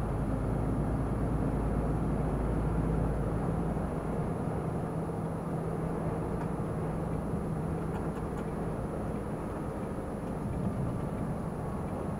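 Semi-truck's diesel engine and tyre noise heard inside the cab while driving on the motorway, a steady rumble and hum. The deepest part of the rumble drops away about four seconds in.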